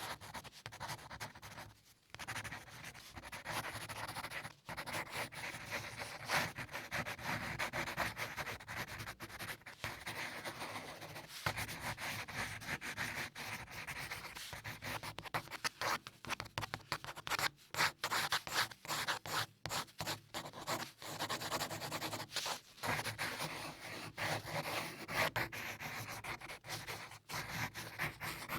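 Pencil lead scratching on paper in continuous sketching strokes, many short back-and-forth strokes with brief pauses between them.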